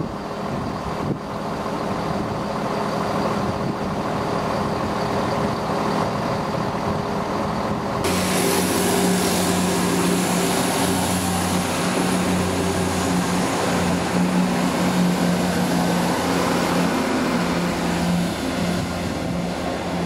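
Chiltern Railways diesel multiple unit running into the station, its underfloor diesel engines giving a steady low drone. It becomes suddenly much louder and fuller about eight seconds in as the train draws alongside, and stays loud while the carriages pass.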